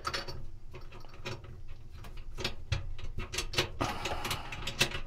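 Light, irregular metallic clicks and ticks of a bolt being threaded by hand and then turned with a 5 mm hex key in the metal bearing cover at the centre of a dryer drum.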